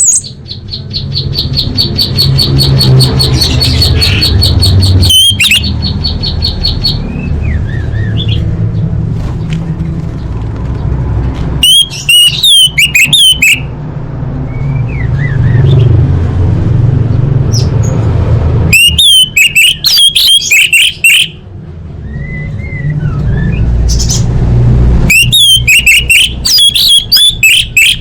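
Orange-headed thrush song played as a tutor recording for captive birds. It opens with a fast, even high trill for the first several seconds, followed by three loud bursts of rapid up-and-down whistled phrases. A steady low hum runs underneath.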